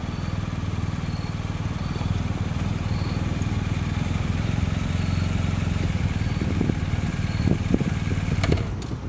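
BMW R 1250 GS boxer-twin motorcycle engine running at low revs as the bike rolls up slowly and stops. A few short clicks and knocks come near the end.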